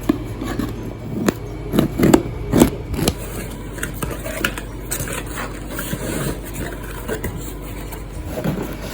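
A parcel being handled and opened by hand: irregular scrapes, rustles and sharp clicks of packaging, loudest in the first three seconds and softer after.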